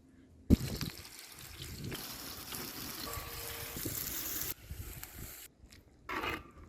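Water pouring in a steady stream. It starts with a knock about half a second in and stops about five and a half seconds in, followed by a short second splash near the end.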